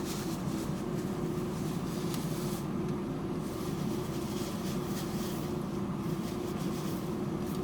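Steady hum of a car's running engine and ventilation fan, heard from inside the cabin, with a constant low tone under it.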